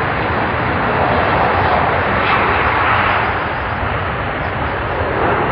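Steady jet engine noise from a Boeing 757 airliner, a continuous even rush without clear bangs.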